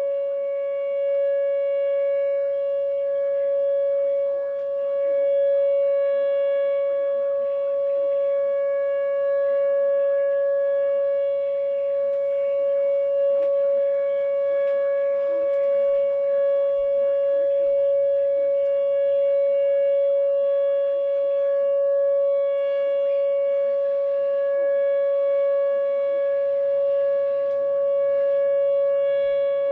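Outdoor warning siren sounding one steady tone, the alert signal for a tornado warning, its level swelling and easing a little as it sounds.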